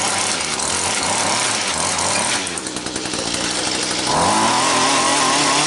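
Small gas engine of a Mantis rototiller running, easing off briefly and then revving up louder about four seconds in.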